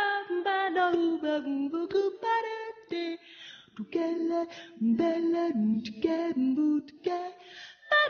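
A woman's solo voice singing a slow melody without accompaniment, moving between held notes, with short pauses between phrases.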